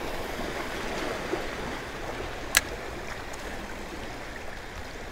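Small waves washing and trickling among jetty rocks, a steady wash, with one sharp click about two and a half seconds in.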